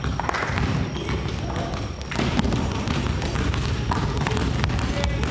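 Several basketballs being dribbled at once on a wooden gym floor, many overlapping bounces at irregular times with no common rhythm.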